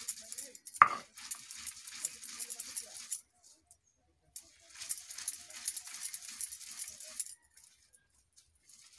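Fresh spinach being ground on a flat grinding stone (shil-nora) with a hand-held stone: wet, gritty scraping and crushing strokes in two stretches with a pause between them. A single sharp knock about a second in is the loudest sound.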